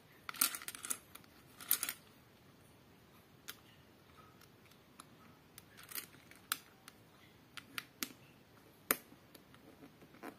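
Small plastic LEGO bricks and plates clicking and rattling as fingers sort through a loose pile and fit pieces together. A short burst of clatter comes in the first two seconds, then single sharp clicks follow about once a second.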